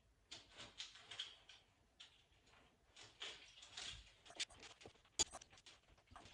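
Faint rustling and scraping with scattered light clicks, and one sharp click about five seconds in.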